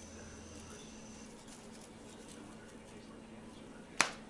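Faint shaking of a spice shaker as dry rub is sprinkled over raw chicken thighs, then one sharp click near the end.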